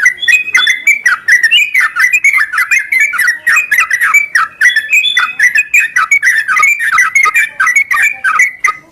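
Sooty-headed bulbul (trucukan) call recording: a loud, unbroken run of quick, short, downward-slurred chattering notes, played as a lure to set a quiet caged bird singing. It cuts off abruptly at the end.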